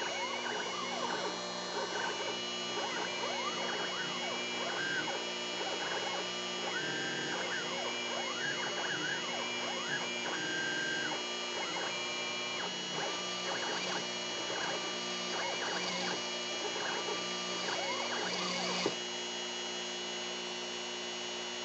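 Homebuilt CNC router with a Dremel as spindle: the axis stepper motors whine up and down in pitch again and again as the machine moves, over the steady whine of the spinning Dremel. About nineteen seconds in the axis moves stop with a click, and the Dremel keeps running on its own.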